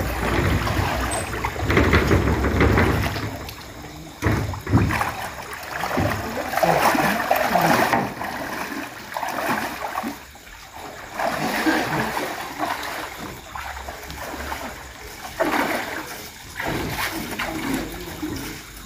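Floodwater splashing and sloshing in irregular surges.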